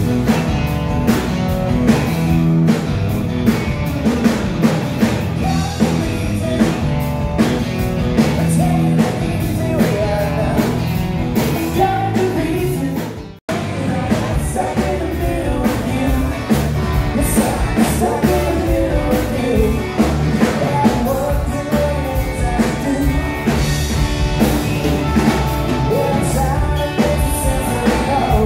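Live rock band playing: a man singing over acoustic and electric guitars, bass guitar and a drum kit. The music breaks off for a moment about halfway through, then carries on.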